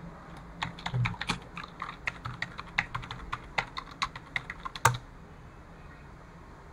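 Typing on a computer keyboard: a quick run of key clicks for about four seconds, typing out a short command, ending with one louder keystroke as Enter is pressed.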